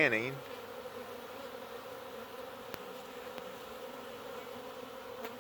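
Honey bees buzzing steadily around a hive box entrance, a steady hum on one pitch, with some bees fanning at the entrance.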